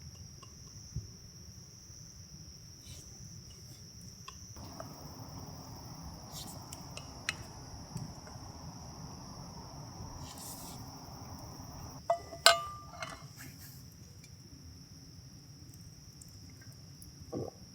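Insects chirping in a steady, shrill, high-pitched chorus. About two-thirds of the way through comes a short cluster of knocks and a ringing clink, with a few softer knocks near the end.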